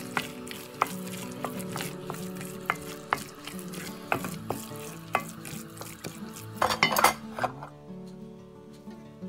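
Wooden spoon stirring thick risotto in a pot, with sharp knocks of the spoon against the pot's side and a louder burst of scraping about seven seconds in. Background music plays underneath.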